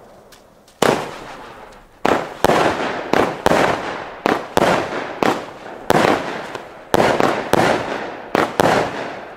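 Weco Black Ice firework battery firing: after a short quiet start, a quick string of sharp shots begins about a second in, roughly two a second, each followed by a fading rush of noise from its burst in the sky.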